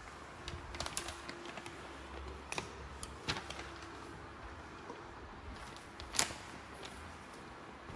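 A few scattered light clicks and knocks over a low steady rumble, the sharpest about six seconds in.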